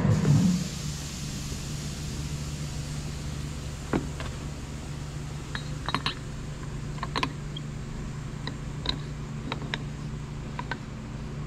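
A loud pulsing machine sound cuts off about half a second in, leaving a steady low hum. Over the hum come scattered light metallic clicks and clinks of tools and engine parts being handled, the sharpest about four and six seconds in.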